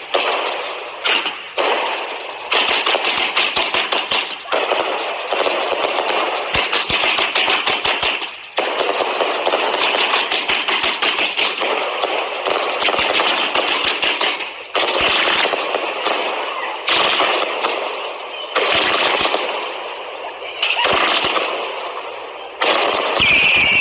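Fireworks going off in long, rapid volleys of crackling bangs, with brief breaks between volleys.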